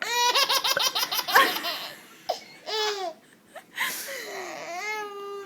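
Baby laughing: a quick run of high-pitched laughs over the first second and a half, then a few shorter laughs and a longer drawn-out one near the end.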